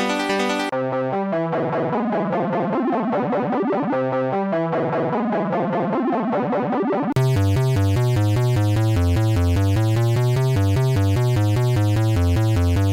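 Synthesizer and electronic keyboard music in short clips, cutting abruptly to a new piece about a second in and again about seven seconds in, where a fast repeating synth pattern over a pulsing bass takes over.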